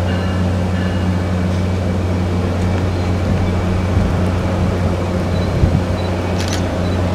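Diesel locomotive of an MBTA train running steadily as the train slowly approaches, a deep even drone with no change in pitch. A short click comes near the end.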